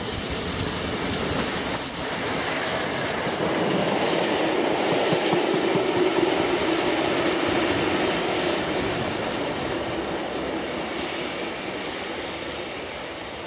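LMS Princess Coronation Class Pacific steam locomotive 46233 Duchess of Sutherland passing with its train of coaches. The sound swells to its loudest about six seconds in, as the coaches go by, then fades away as the train recedes.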